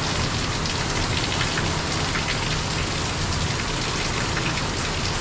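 Hurricane rain pouring down steadily, an even hiss with no letup.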